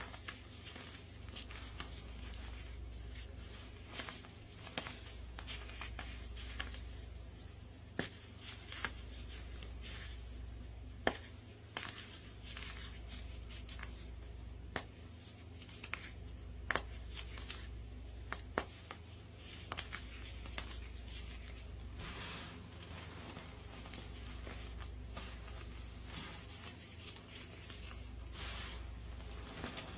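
Reformed baking soda chunks crushed and crumbled between the fingers, giving irregular crisp crunches and crackles over a steady low hum.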